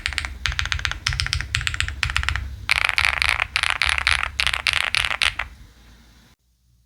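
Typing on a 75% mechanical keyboard with double-shot PBT keycaps: quick runs of keystrokes, then denser, louder clusters of strokes about three seconds in. The typing stops about six seconds in.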